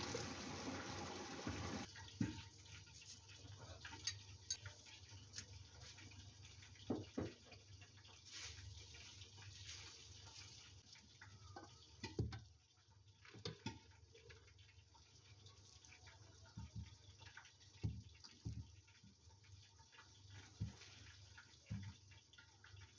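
Hot cooking water and herb rice poured from a pot into a metal colander in a stainless sink, the water rushing and draining, stopping suddenly about two seconds in. Then scattered knocks and scrapes as a wooden spatula works the rice out of the steel colander into a pot.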